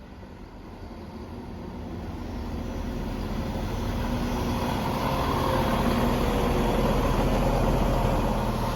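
Class 170 Turbostar diesel multiple unit's underfloor diesel engines throttling up as the train pulls out of the station, a low steady drone growing steadily louder.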